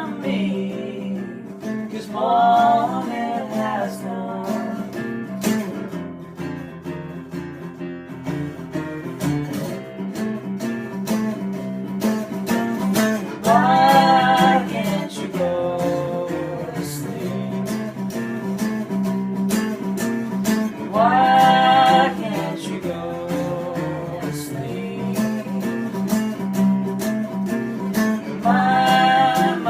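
Song music: a steadily picked and strummed acoustic guitar, with sung phrases coming in four times, roughly every seven seconds.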